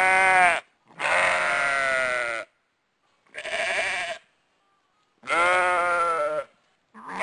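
An animal bleating in five separate calls, each a second or so long, with dead silence between them.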